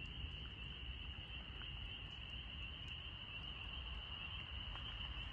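Steady chorus of night insects, a continuous high buzzing trill that does not let up, with a faint low rumble underneath.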